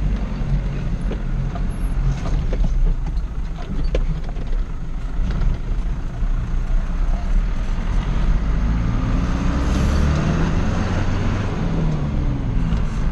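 Mazda T4000 truck engine running under load inside the cab, its pitch rising a few times in the second half as it accelerates. Occasional knocks sound over it.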